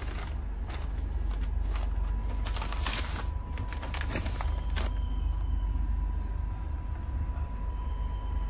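Rustling and crinkling of a railway bedding packet (sheets and towel in a plastic-printed bag) as it is handled, mostly in the first five seconds, over a steady low rumble inside the train coach. A faint steady high tone runs beneath.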